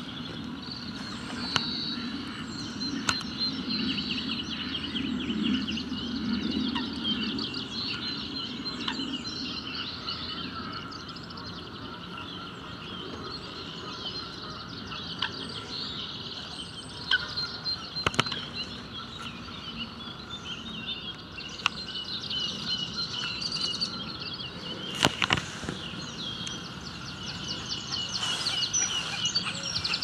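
Small songbirds chirping and singing in a continuous chorus of rapid high trills, over a low steady background rumble. A few sharp clicks stand out, twice near the middle and once about three-quarters through.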